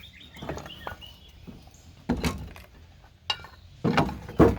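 A few sharp knocks and clunks, one about two seconds in and several near the end, as a heavy old belt-drive chainsaw is handled and shifted about.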